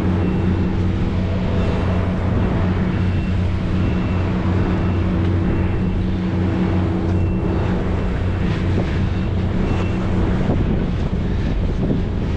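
Boat engine running steadily with a low hum, with wind on the microphone. A faint short high beep repeats through most of the stretch.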